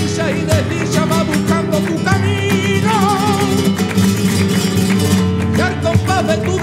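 Flamenco music: an acoustic flamenco guitar playing, with palmas hand-clapping keeping the rhythm throughout, and a man's voice singing a wavering, ornamented line a little after two seconds in.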